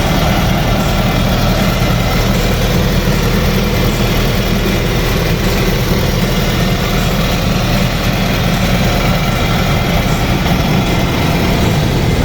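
Diesel engine of a Komatsu PC60-8 crawler excavator running steadily at idle.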